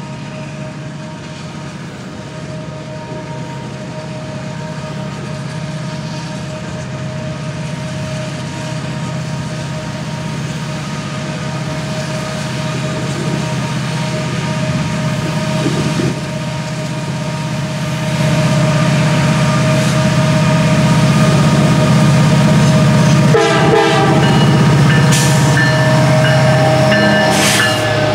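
EMD diesel-electric freight locomotives approaching under power and passing close by: a heavy engine drone with a steady whine above it, growing louder as the units go by. Wheels clatter over the rail about two-thirds of the way through, with sharp hissing squeals near the end.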